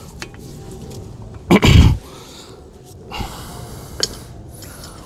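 A short, loud exhale close to the microphone about a second and a half in. Faint rustling and a couple of light knocks come after it.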